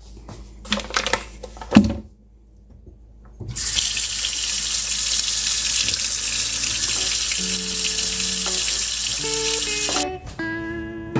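Kitchen faucet turned on about three and a half seconds in, running water at full flow into a sink in a steady hiss for about six seconds, then shut off abruptly. A few light handling clicks come before it.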